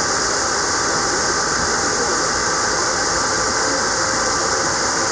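Rubber-tyred airport people mover (Atlanta's Plane Train) running at speed through a tunnel, heard from inside the car: a steady rolling rumble under a strong, even hiss.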